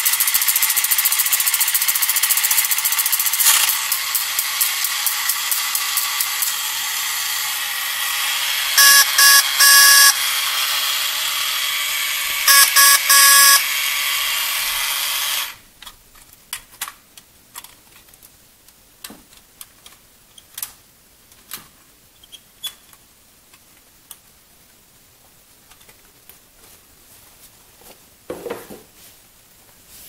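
Battery-operated 1960s Bandai tin Volkswagen convertible toy running while held off the ground: its electric motor and gears whir steadily, and its horn sounds in short toots, about three near nine seconds in and again near twelve and a half. The motor cuts off suddenly about halfway through, leaving only faint clicks and knocks of the tin toy being handled.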